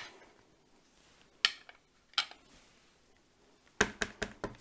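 Small plastic ink pad tapping on a clear stamp: two single clicks, then a quick run of about six taps near the end as the pad is dabbed onto the stamp to ink it.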